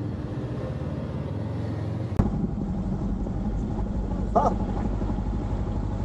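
Motorcycle engine running at low revs with a steady low pulse. About two seconds in there is a sharp knock, and the low rumble becomes fuller and louder. A brief higher sound comes about four and a half seconds in.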